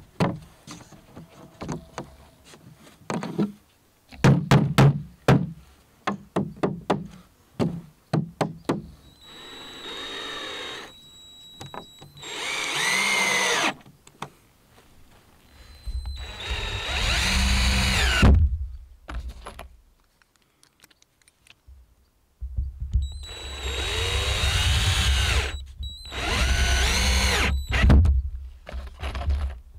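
A series of knocks and taps on wood, then a power drill driving screws into timber in five runs of one to three seconds each, its pitch rising and falling under load.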